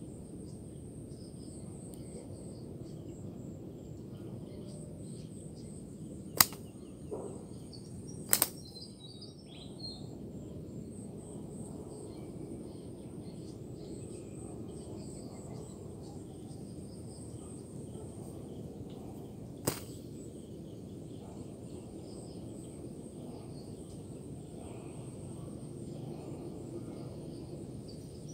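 Outdoor ambience under trees: a steady high insect whine over a low background hum, broken by sharp clicks. There is one about six seconds in, a quick double click about two seconds later, and a single one near twenty seconds.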